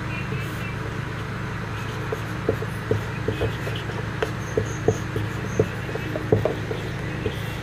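Felt-tip marker writing on a whiteboard: irregular short taps and strokes as the letters are formed, over a steady low hum.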